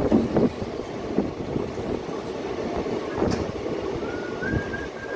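Passenger train running slowly through a station, heard from the open doorway of a coach: a steady rumble of the wheels on the rails with an irregular rattle and clatter of knocks.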